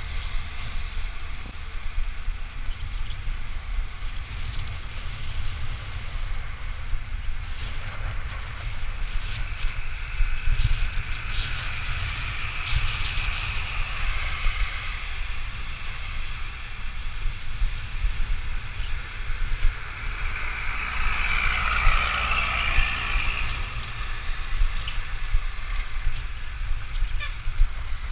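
Wind buffeting a handlebar-mounted action camera's microphone during a ride on a road, a steady low rumble with hiss. Passing traffic noise swells twice, around halfway and again about three quarters of the way through.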